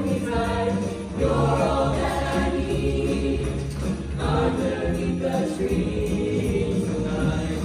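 Mixed show choir of male and female voices singing over instrumental accompaniment.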